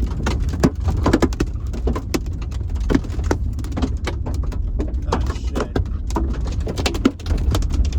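Large hailstones pelting a car's roof and windshield, heard from inside the cabin: a dense, irregular run of sharp hits, several a second, over a steady low rumble.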